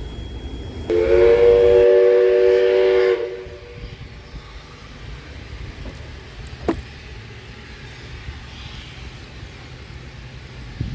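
Steam whistle of NSW 59 class locomotive 5917 giving one blast of about two seconds, a chord of several tones. After it comes a quieter steady rumble, with a single sharp click partway through.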